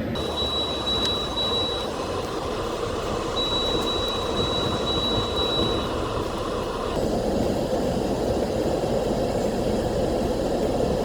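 Strong wind blasting across the microphone. A high electronic beeping sounds in two runs of rapid pulses over the first six seconds.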